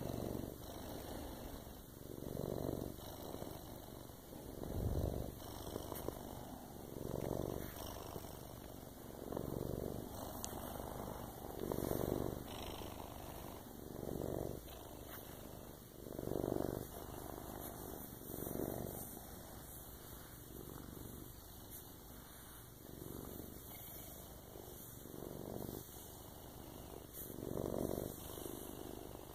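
Domestic cat purring, close up, the purr swelling and fading with each breath about every two seconds.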